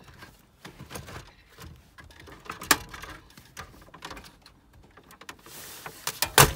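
Plastic clicks, creaks and knocks of the Holden VE Commodore's factory head-unit fascia being pulled out of the dash as its plastic retaining clips let go, with sharp snaps about two to three seconds in and again near the end.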